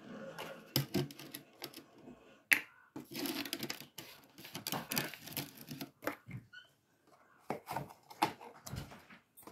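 Irregular small clicks, taps and rustles of kitchen containers being handled over a steel mixing bowl: a small bottle being capped and set down, and a cardboard box being picked up and opened.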